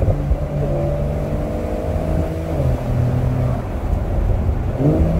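Porsche 911 (992) Cabriolet's flat-six engine running steadily at cruise with the roof open, over wind and road noise; its pitch drops slightly about two and a half seconds in.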